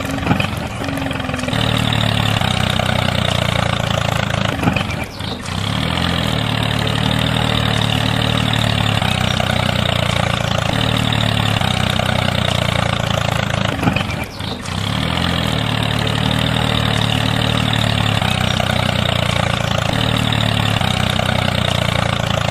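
Tractor engine running steadily with a low, even drone. It dips briefly about five seconds in and again about fourteen seconds in.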